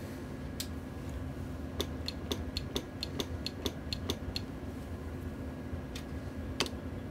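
Sharp mechanical clicks from a CB linear amplifier being keyed and switched on test: a quick run of about ten clicks, roughly four a second, then a couple of single clicks near the end, over a steady electrical hum.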